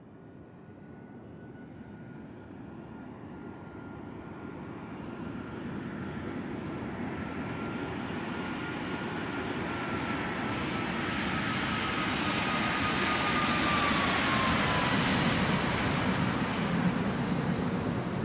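Jet aircraft approaching and passing overhead: its engine noise grows steadily louder, and its whine drops in pitch as it goes by, about three quarters of the way through.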